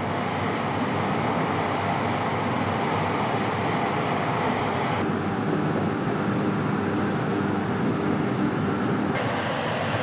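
Steady machinery rumble and wind noise on a ship's deck. The background changes abruptly at edits about five and nine seconds in, with a faint low hum in the middle stretch.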